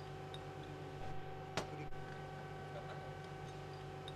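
Steady low electrical hum with a few faint ticks and one sharp click about a second and a half in, as a steel pump seal support is handled on a workbench.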